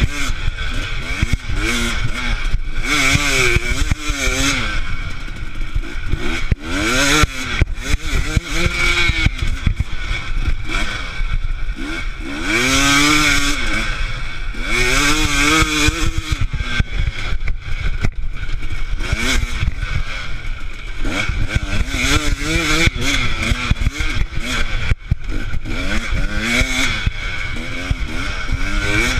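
Dirt bike engine revving hard, its pitch climbing and dropping again and again as the rider throttles on and off over a rough dirt track, with knocks and rattles from the bike over the bumps.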